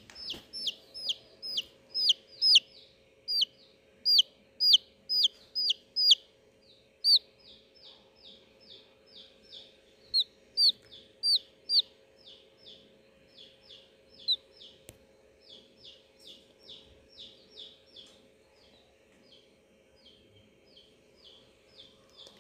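Baby chicks peeping: a run of short, high peeps that each fall in pitch, about two or three a second, loudest in the first six seconds and softer after. A steady low hum runs underneath.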